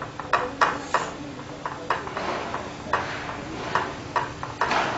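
Irregular light clicks and taps as banana slices are set down and pushed into place by hand in a glass baking dish, fingers knocking against the glass, with brief soft rustles in between.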